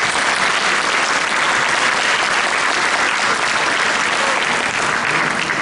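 Audience applauding, steady and full, easing off right at the end.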